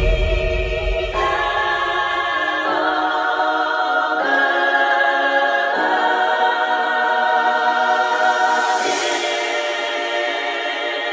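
Background music: held, choir-like chords that change every second or two, with no beat.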